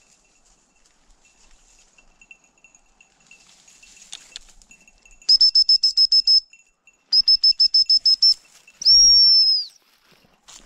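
Gundog whistle: two quick runs of short, evenly spaced high pips, then one long blast.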